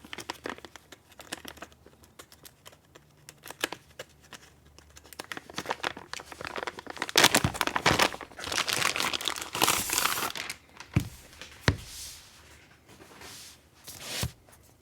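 Packaging being unwrapped by hand: irregular crinkling and tearing with sharp crackles, heaviest about halfway through.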